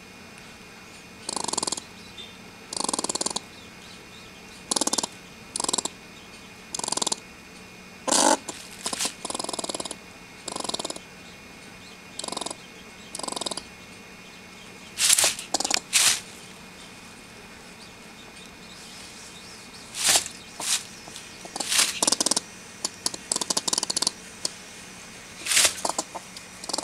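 Trapped eastern gray squirrel making agitated chattering calls: short harsh, breathy calls repeated about once a second at first, then louder, sharper bursts coming in quick clusters in the second half.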